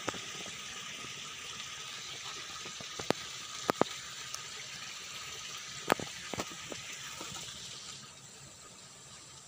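Steady rush of water splashing onto a fish pond's surface from a row of small jets, easing somewhat near the end. A few sharp clicks cut through it, the loudest about four and six seconds in.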